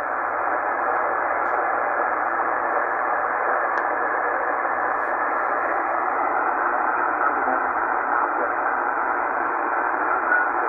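Steady static hiss from a Tecsun PL-990x shortwave receiver's speaker, tuned to an open 80-metre lower-sideband channel with no station transmitting. The hiss sounds thin, cut off at the top and bottom like telephone audio.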